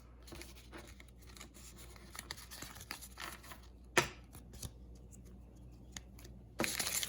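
Faint handling of trading cards and packaging: soft rustles and light taps, one brief sharper rasp about four seconds in, and louder crinkling of a booster pack wrapper starting near the end.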